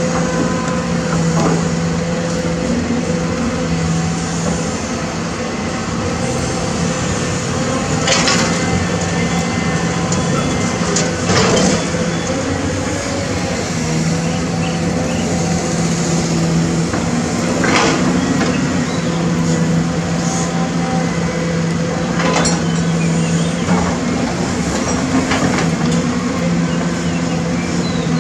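Caterpillar 320D hydraulic excavator's diesel engine running under digging load, its hum swelling and easing through a dig, swing and dump cycle. Several sharp knocks and clatters of rock and rubble against the steel bucket and the dump truck's bed.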